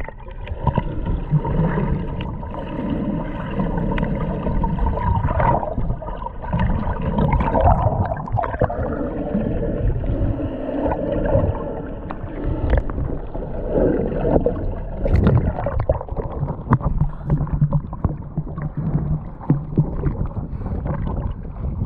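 Churning, gurgling water with the steady hum and whine of a boat's engine running nearby.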